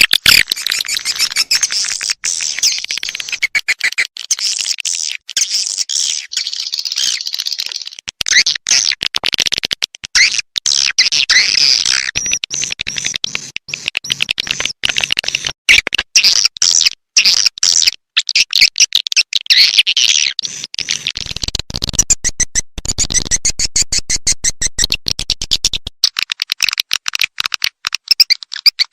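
Swiftlet lure-call recording of the kind played in swiftlet houses to attract nesting birds: dense, rapid twittering chirps and clicks, repeated many times a second. In the last third a low pulsing joins in.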